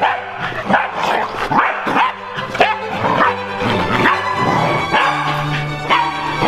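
Pembroke Welsh corgi barking again and again in short barks at another corgi, over background music.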